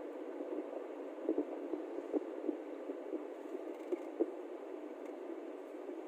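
Steady road and engine noise inside a moving car's cabin: a low drone with a few irregular soft thumps, most of them in the second second and one about four seconds in.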